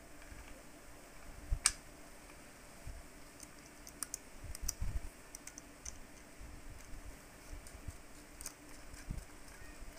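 Small scattered clicks and light knocks of metal parts being handled, as a large bolt is threaded by hand through the joint of a metal wall-fan bracket. One sharper click comes about a second and a half in, and a run of quick ticks follows around the middle.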